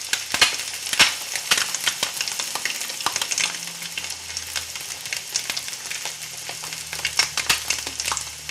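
Food frying in a hot pan: a steady sizzle full of sharp spitting pops.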